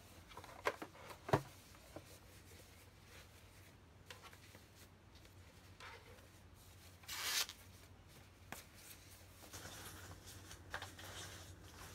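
Packaging rustling and rubbing as a UV/LED nail lamp is pulled out of its box, with a couple of sharp knocks in the first second and a half and a louder rustle or tear about seven seconds in.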